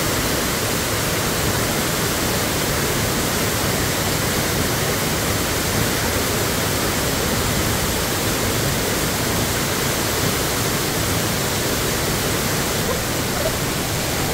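Waterfall plunging into a rock pool: a steady, even rush of falling water.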